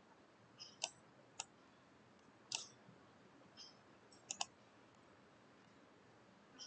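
Faint, scattered computer mouse clicks, about half a dozen, with a quick double click about four seconds in, over near silence.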